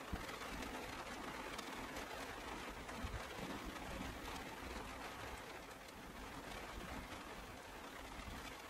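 Steady rain falling, a dense hiss with scattered tapping of individual drops. There is a soft low thump just after the start and another about three seconds in.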